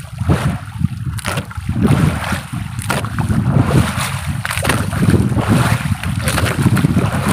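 Wind buffeting the phone's microphone on an open outrigger fishing boat, with the wash of the sea around the hull; the rumble is uneven and gusty.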